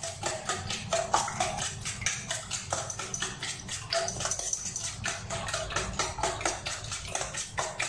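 A metal spoon beating raw eggs in a stainless steel mixing bowl: rapid clinking and scraping of metal on metal, several strokes a second.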